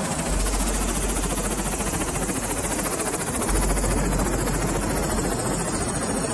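UH-60 Black Hawk helicopter running on the ground close by: steady rotor and turbine noise with a fast, even beat from the rotor blades.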